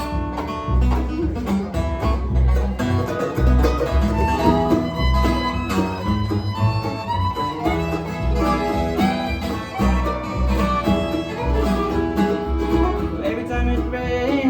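A bluegrass band playing an instrumental passage with no singing: fiddle, banjo and guitar over a bass line that pulses on the beat.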